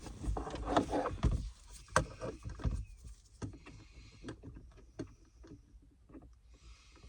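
Center console parts being handled and worked loose by hand: a run of clicks, knocks and rustles, busiest in the first three seconds with a firmer knock about two seconds in, then scattered light ticks.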